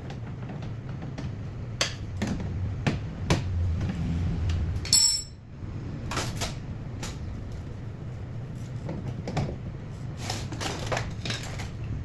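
Irregular clicks and light clatter of small hard objects, over a steady low hum.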